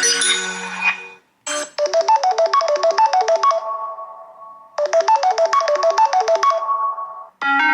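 Samsung Galaxy stock ringtones playing in turn. One tone fades out, then a new one plays a short run of rapidly repeated bright synth notes twice over, each run ringing away before the next. Another ringtone begins near the end.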